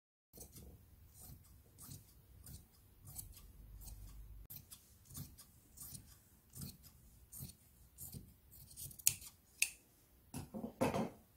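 Fabric shears snipping through cotton-linen fabric in a run of short, quiet cuts, with a few louder snips near the end.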